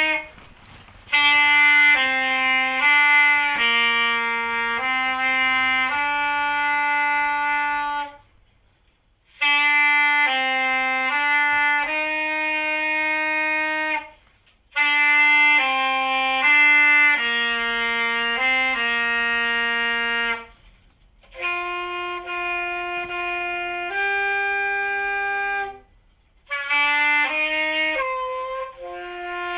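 Instrumental music: a solo wind-instrument melody, one note at a time, played in phrases broken by short pauses about every six seconds.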